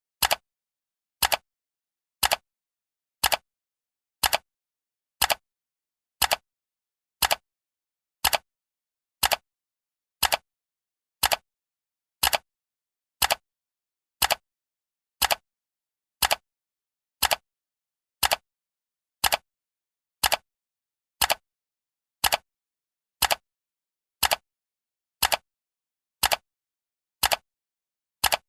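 Clock ticking, one sharp tick each second with silence between, counting down a timer.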